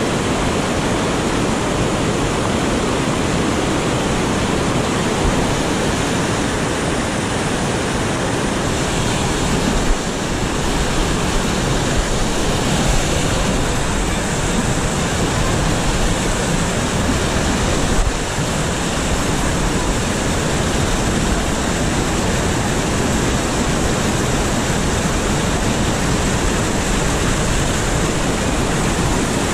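River rapids: whitewater rushing and churning over rock ledges close by, a loud, steady roar of water.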